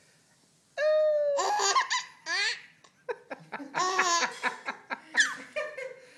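A baby laughing hard in repeated bursts of belly laughter, set off by a short, steady, high-pitched noise about a second in.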